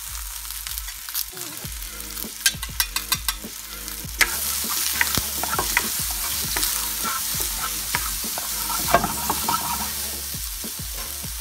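Whole button mushrooms and minced garlic frying in butter in a pan, a steady sizzle with scattered pops as they are stirred with a spatula. A quick run of sharp clicks comes about two and a half seconds in, and the sizzle turns louder from about four seconds in.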